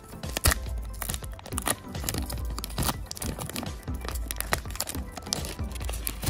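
Foil trading-card booster pack crinkling and crackling in the hands as it is torn open, with dense sharp crackles throughout, over background music.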